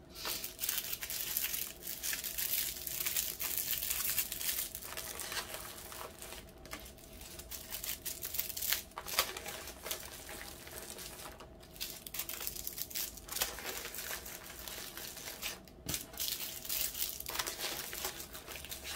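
Small plastic bags of diamond-painting drills crinkling and rustling as they are handled and sorted, with many small clicks throughout.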